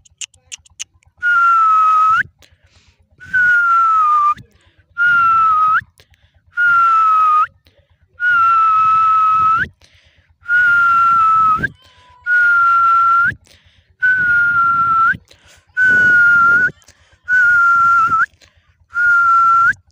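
Dog whining: about ten long, high whines, each holding one pitch for about a second and flicking upward at the end, repeated every couple of seconds.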